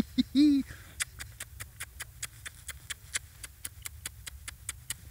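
A quick run of small wet smacking clicks, about five a second, from a man and a terrier nuzzling face to face, after a brief voiced murmur at the start.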